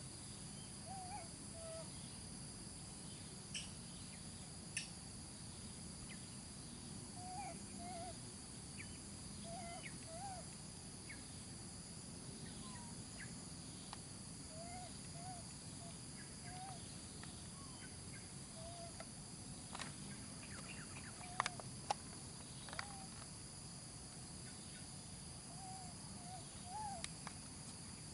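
Short, low bird calls, each a quick rising-and-falling note, repeating irregularly every second or two over a steady high insect drone. A few sharp clicks stand out about three-quarters of the way through.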